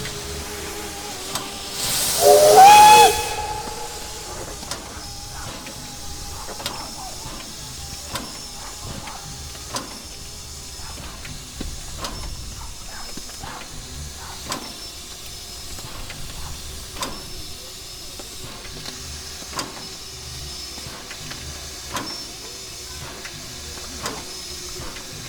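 Class L steam locomotive standing at idle: a steady hiss and hum of steam, broken by sharp knocks every two to three seconds. About two seconds in, a brief, loud blast of steam carries a rising whistling tone.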